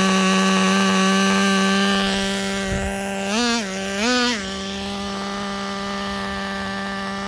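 Traxxas Nitro Rustler's small glow-fuel nitro engine idling steadily, with two short throttle blips about three and four seconds in. The engine is in break-in, with its carburettor being tuned.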